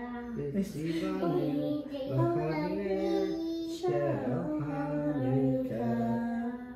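Voices singing a slow Hanukkah candle-lighting song with long held notes over the lit menorah; the singing stops near the end.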